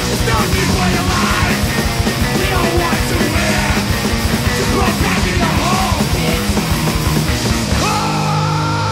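Hardcore punk band recording with fast drums, distorted electric guitars and bass playing a passage with no sung words. About eight seconds in, the band lands on a held chord that rings on, with high sustained guitar tones bending in pitch.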